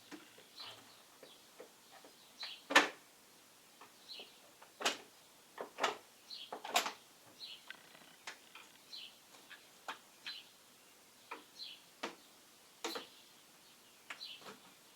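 Irregular clicks and knocks of a car's air filter housing being worked open by hand and screwdriver, the loudest knock about three seconds in. Small birds chirp faintly now and then.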